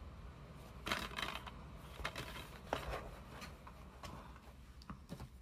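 Plastic DVD cases being handled, one set down against a stack of cases: a few scattered light clacks and rustles.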